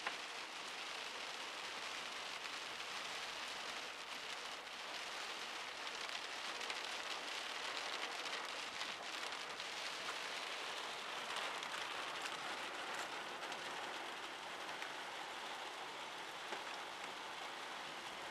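Heavy rain falling steadily on a car, heard from inside the cabin as a constant even hiss.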